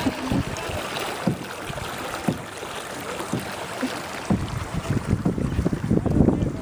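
Wind buffeting the microphone out on open water, in irregular low rumbling gusts that get heavier about four seconds in.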